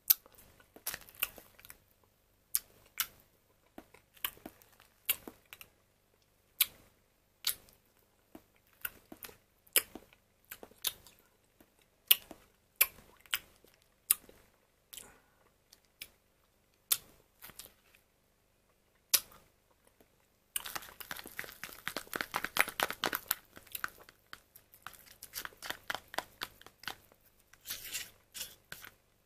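A metal spoon clicking and scraping against a plastic dessert cup of chocolate pudding topped with whipped cream, in sharp separate clicks every second or so. About two-thirds through, a busier run of quick scrapes begins as the pudding and cream are stirred together.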